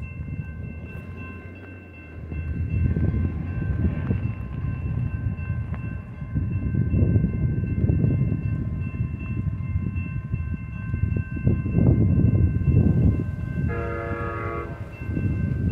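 Railroad crossing bell ringing steadily as the gates come down, over a gusty low rumble. Near the end an approaching Amtrak San Joaquin train sounds its horn once, a chord about a second long.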